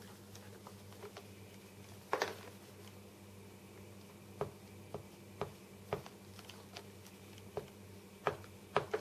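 Plastic covering film crinkling and clicking softly as it is laid and pressed down by hand on a model plane wing: scattered short crackles, a louder rustle about two seconds in, over a faint steady hum.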